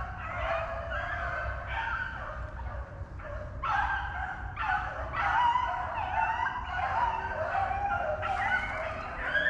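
A pack of rabbit hounds baying on a rabbit's trail, many overlapping drawn-out cries and yelps, growing louder about halfway through as the pack runs the rabbit.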